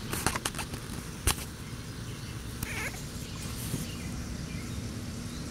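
Boston Terrier puppy giving one short, high whimper about two and a half seconds in, after a few light clicks and a sharper knock in the first second or so.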